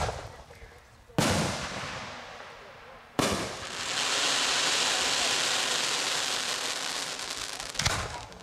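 Consumer aerial firework shells going off: a sharp bang at the start, another about a second in, and a third about three seconds in followed by a steady hiss lasting some four seconds, then a last bang near the end.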